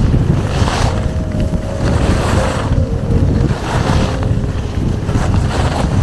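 Wind buffeting the microphone during a downhill ski run, a heavy steady rumble. Over it, the skis hiss and scrape across the snow in surges every second or two as the turns are carved.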